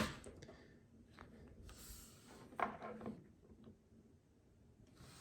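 Faint handling noises of plastic action figures and stands: a sharp knock at the very start, then a few light taps and rubs.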